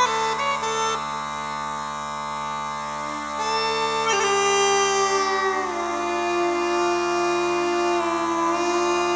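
Uilleann pipes playing a slow lament: the chanter carries a melody of a few long notes, sliding down about halfway through onto one long held note, over the steady drones.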